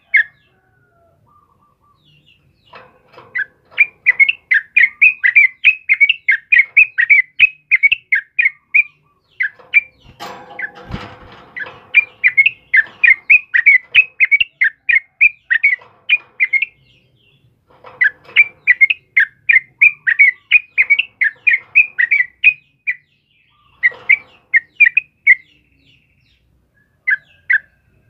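Yellow-vented bulbul (trucukan) singing in fast bouts of rapid, chirpy whistled notes, several seconds long with short pauses between them. About ten seconds in there is a brief rustle and thump.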